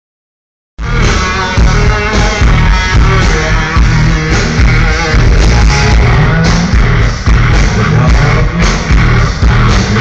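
Rock band's sound check blaring through an outdoor stage PA: loud rock with a steady pounding beat, cutting in abruptly about a second in.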